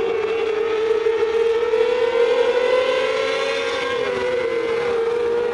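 Several mini sprint race car engines running at high revs together. They make a steady, high engine note that rises slowly, then partly drops away about four seconds in.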